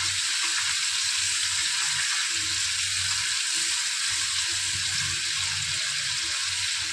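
Marinated hilsa steaks frying in hot mustard oil in an iron kadai: a steady sizzle as the pieces are turned over with a metal spatula.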